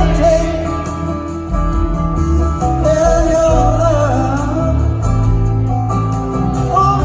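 Live rock band playing a soft rock ballad: guitars, bass and drums under a held, wavering lead melody.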